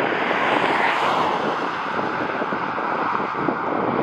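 Jet airliner engines passing by: a steady rushing noise, with a whine that slowly drops in pitch after about a second.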